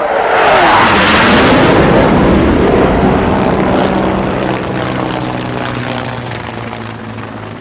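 Aircraft flyby sound effect: a loud rushing roar swells in the first second as its pitch drops, then fades slowly, leaving a steady low engine hum.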